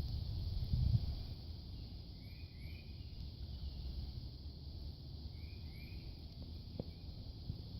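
Pondside spring ambience: pairs of short rising chirps recur about every two and a half seconds over a steady high-pitched hiss, with a low rumble of wind underneath and a soft thump about a second in.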